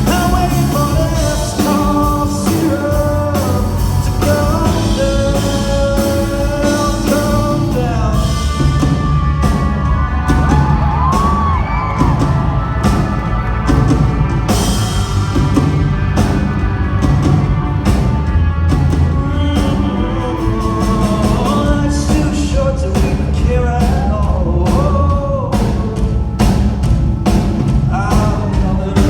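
Live rock band performance with a male lead vocalist singing over steady bass and drums.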